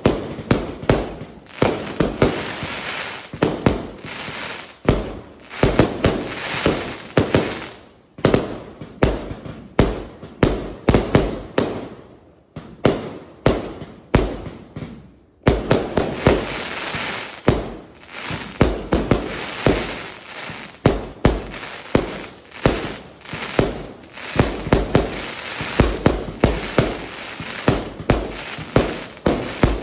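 A 399-shot fireworks cake with 0.8 to 1.5 inch tubes firing a fast string of shots, several a second: each launch and burst is followed by crackle, with a few short breaks, the longest about halfway through.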